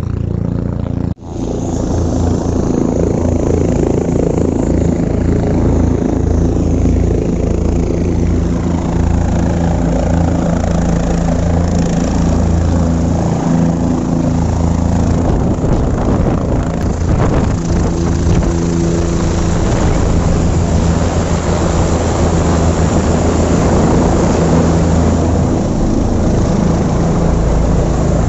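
Helicopter running close by: the steady, loud drone of its rotor and engine, with a low pulsing beat. The sound cuts out for an instant about a second in, then carries on unchanged.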